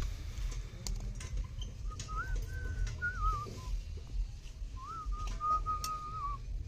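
A person whistling a tune in short phrases, starting about two seconds in, over a low background rumble with a few sharp clicks.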